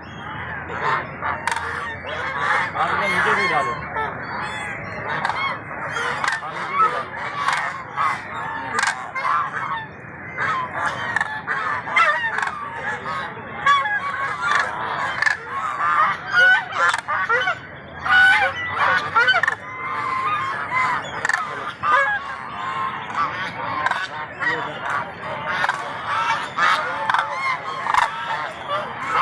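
A flock of domestic geese and ducks calling nonstop, with many honks and quacks overlapping in a dense chatter.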